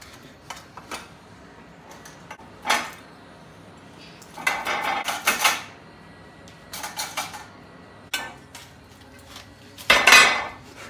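A metal cake tin being knocked and scraped with a utensil to free a baked sponge layer that is stuck to it. The clatters are scattered: a sharp knock about three seconds in, a run of clatter around five seconds, and the loudest clatter near the end.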